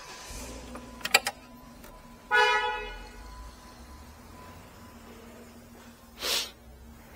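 A short car horn blast about two seconds in, starting abruptly and fading quickly, preceded by a few sharp clicks. Near the end comes a brief rushing noise.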